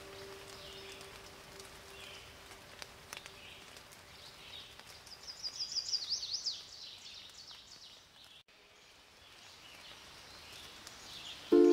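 Birdsong ambience: several birds chirping and calling, with a quick run of falling notes about five to six seconds in. A faint held low note fades out over the first few seconds, and music comes in just before the end.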